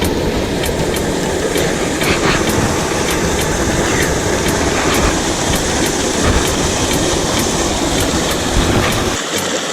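Mountain creek water rushing over rocks: a loud, steady rushing noise with heavy low rumble, whose deepest part falls away near the end.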